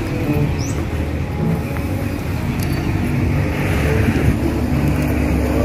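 Street traffic: a motor vehicle engine running close by, a steady low hum that grows a little louder near the end.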